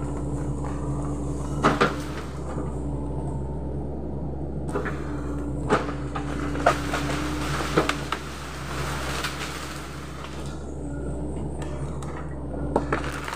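Sany SY75C excavator's diesel engine running steadily while it clears timber, with sharp cracks and knocks from wood and branches breaking, several times, and a stretch of rustling brush in the middle.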